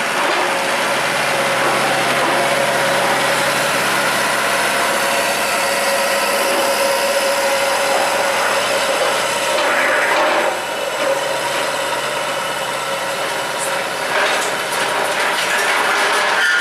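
Kubota DCX 100 rice combine harvester running, a steady whine over a dense mechanical clatter, with a few louder knocks and rattles in the last few seconds.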